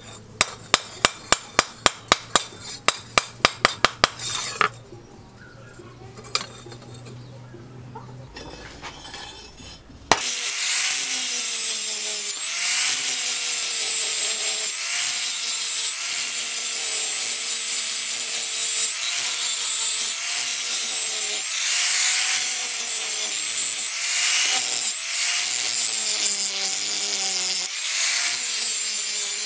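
Hand hammer striking a steel cleaver blade on a post anvil, about fifteen quick blows in the first few seconds. About ten seconds in, an angle grinder starts cutting steel, its whine dipping in pitch each time the disc bites under load and recovering.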